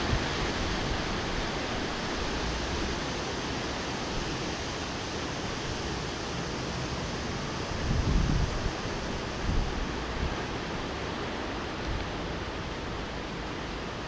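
Wind blowing in a steady rush, with a couple of louder low gusts a little past halfway.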